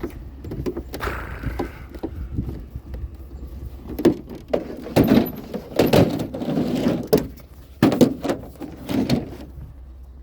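Irregular knocks, bangs and rattles of curbside scrap being handled, loudest in a cluster from about four seconds in, over a steady low rumble.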